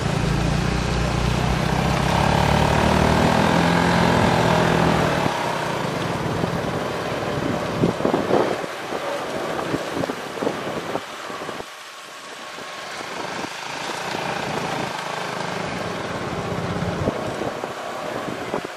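Motorcycle engine running as it rides slowly along a rough lane. It is loud for the first five seconds, then eases off. A few knocks and rattles come about eight to eleven seconds in.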